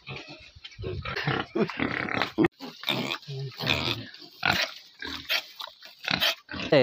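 Pigs grunting in quick, irregular short bursts as two of them scuffle and bite at each other.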